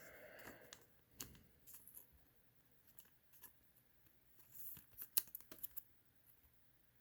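Faint rustles and clicks of a trading card and a soft plastic card sleeve being handled, the card slid into the sleeve, with a cluster of sharper clicks about five seconds in.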